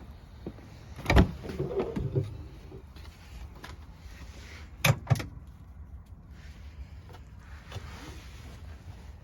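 A loud thump with a second of rattling about a second in, then two sharp clicks in quick succession near the middle, over a low background rumble.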